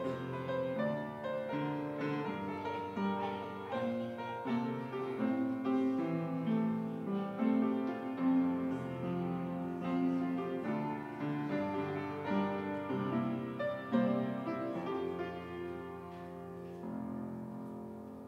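Instrumental piano music, a slow melody of sustained notes that gets quieter near the end.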